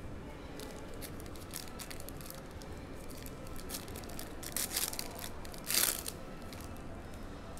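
Crinkling and tearing of a trading-card pack wrapper being opened by hand, with two louder rips a little past halfway, about a second apart.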